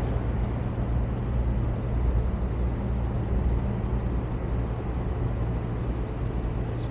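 Steady low vehicle rumble with an even hiss of road noise, unchanging throughout.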